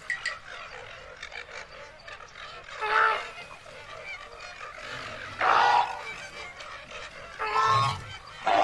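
Four short, loud animal calls spaced a second or two apart, over a steady background hiss.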